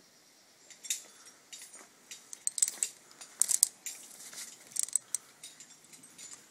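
Climbing hardware (carabiners and quickdraws on the climber's harness) clinking and jangling in irregular clusters of sharp metallic clicks as he moves up the rock, starting about a second in.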